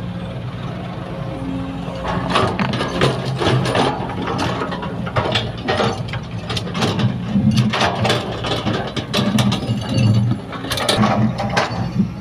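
Sumitomo hydraulic excavator working: the diesel engine runs steadily under load while a rapid series of metallic clanks and knocks begins about two seconds in and carries on.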